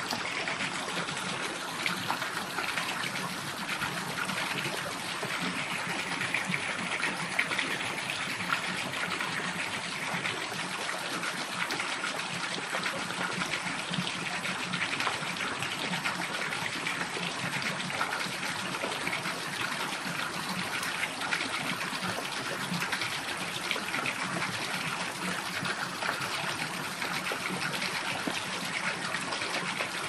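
Stream water trickling and flowing steadily, an even rushing sound with no breaks.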